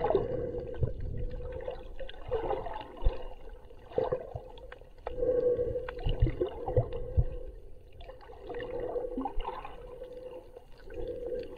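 Muffled water noise from a camera held underwater: sloshing and gurgling that swells and fades, over a steady hum, with scattered clicks and a few dull thumps.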